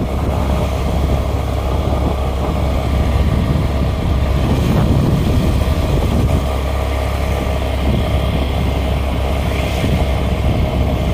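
Steady rumble of wind on the microphone over a running vehicle, heard while riding along a road.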